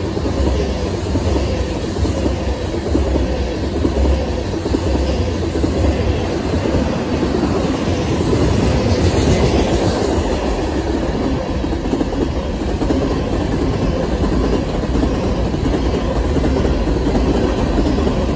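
Freight train cars rolling past at close range: a steady rumble with the clatter of steel wheels on the rails.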